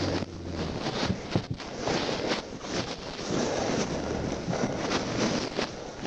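Police car creeping through woodland brush: a steady rush of noise over a low engine hum, with a few sharp snaps and knocks about one to two and a half seconds in as branches and undergrowth hit and scrape the car.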